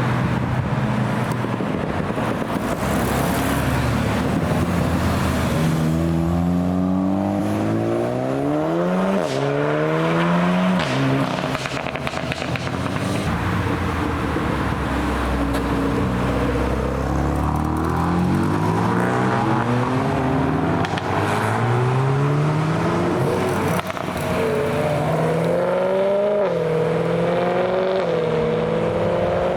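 Performance car engines accelerating away one after another, the engine note climbing under throttle and dropping back at each gear change, several times over.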